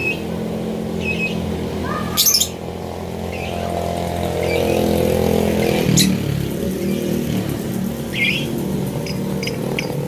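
Caged lovebirds chirping, with one loud shrill screech about two seconds in and a quick run of short repeated chirps near the end, over a steady low hum.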